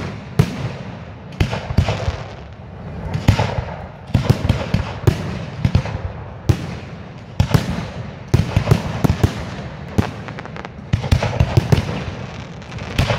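Aerial fireworks shells bursting in quick succession, sharp bangs coming singly and in tight clusters of several a second, over a continuous rumble.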